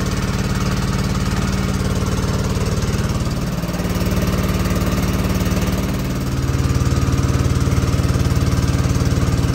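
Small inboard engine of a wooden river ferry boat running steadily under way, getting louder about six and a half seconds in.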